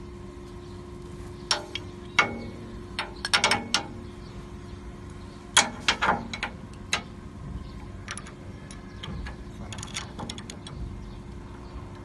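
Sharp clicks and clacks of a black glass-door hinge being handled and pressed against a glass panel: a few single clacks, then two close clusters in the first seven seconds, then lighter ticks. A steady faint hum runs underneath.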